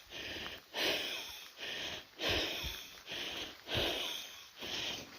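Heavy, wheezy breathing close to the microphone: quick, even breaths in and out, about seven in five seconds, from a walker short of breath.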